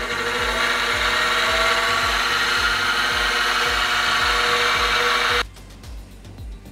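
Benchtop milling machine's spindle motor running at speed: a loud steady whine and rush, rising a little in pitch at the start, that cuts off suddenly about five and a half seconds in. Background music with a steady beat runs underneath.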